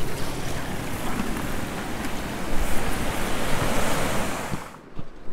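Sea surf washing in over rocks, with wind buffeting the microphone; the sound cuts off suddenly near the end.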